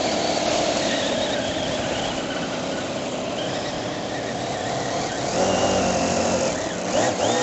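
Conley single-overhead-cam 4 HP V8 model engine running in an R/C model race boat under way on the water. It gets louder and its note changes about five seconds in, then rises sharply near the end.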